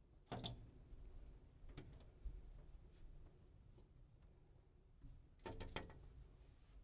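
A bird knocking against a window or door: a short flurry of sharp taps about half a second in, a single tap a little later, and another flurry near the end.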